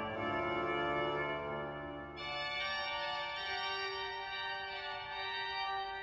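Flentrop pipe organ (1976) playing Baroque French organ music, with sustained full chords. About two seconds in, the low bass drops away and a brighter, higher-pitched sound carries on.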